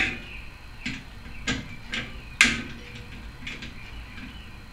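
Hand ratchet on a long socket extension clicking in short, irregular bursts as it is swung back and forth, backing out an 8 mm screw on a small engine.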